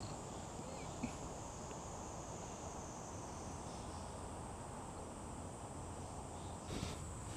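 Cicadas singing as a steady high-pitched buzz over faint outdoor background noise.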